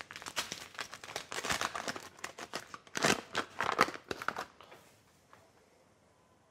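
Paper bag of caster sugar being torn open and crinkled in the hands, a dense papery crackle for about four and a half seconds that is loudest near the end, then stops.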